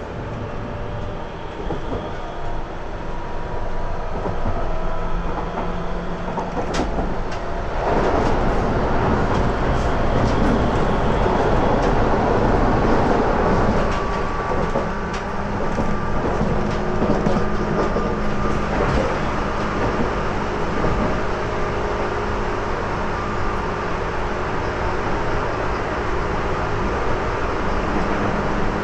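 JR Kyushu 811 series electric train with external-fan traction motors running at speed, heard from inside the car: steady wheel-on-rail rumble with a faint, even motor and fan whine. A few sharp clicks come about seven seconds in, and the running noise grows louder from about eight seconds in.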